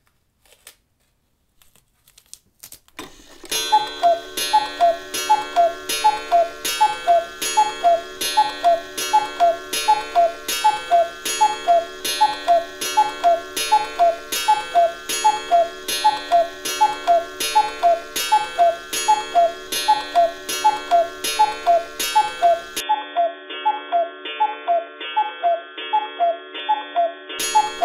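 Loud, rhythmic clock ticking, about two to three beats a second over a steady ringing drone. It starts about three seconds in and, near the end, thins out as if muffled.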